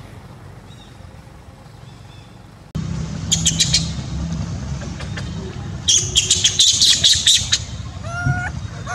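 Quiet outdoor ambience that cuts off abruptly about three seconds in, replaced by loud birds squawking and chirping in rapid clusters, with a short rising call near the end.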